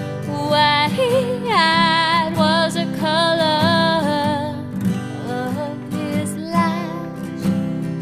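Background music: a country-style song with strummed and plucked acoustic guitar and a voice singing a wavering melody.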